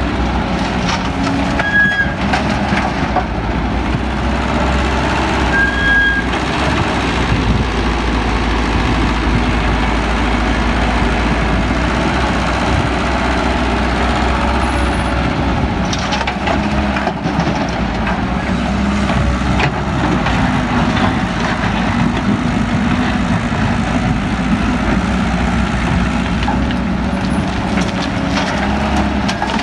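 Heavy diesel excavator working, its engine running steadily under load with a few scattered clanks. Two short, high beeps come in the first several seconds.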